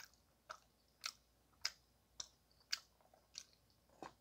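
Faint, regular chewing with wet mouth clicks, about two a second.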